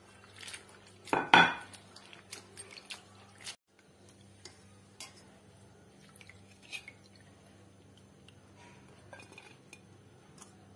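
Hands swishing crushed green chillies in water in a stainless steel bowl, rinsing the seeds out, with knocks and clinks against the steel. The loudest clatter comes about a second in, followed by scattered small clicks and light splashes.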